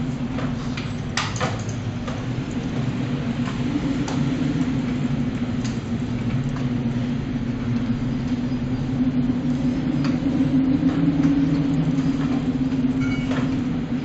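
Steady low drone of a large bulk carrier's engine and machinery under a rushing noise of wind and sea in a storm, with scattered light clicks and rattles. The drone swells slightly about ten seconds in.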